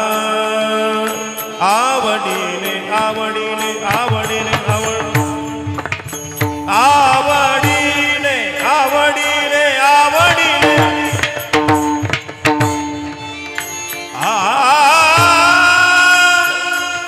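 Marathi kirtan music: a solo voice sings long, ornamented, wavering phrases over steady held accompanying notes and tabla-like drum strokes. The voice breaks off briefly about twelve seconds in, then comes back in with a long held line.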